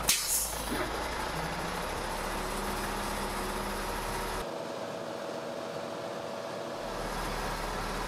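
A 16-ton water truck used as a rain machine runs steadily while spraying water. There is a short sharp hiss right at the start, and the higher hiss drops away suddenly about halfway through.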